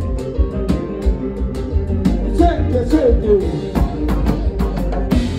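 Live band music: drum kit, electric guitar and keyboard over a heavy bass line, with singing and a vocal line that slides up and down about halfway through.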